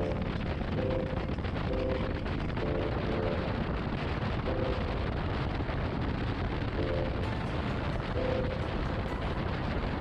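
Motorcycle on the move: a steady engine and wind rush with no let-up, with short pitched tones coming and going over it.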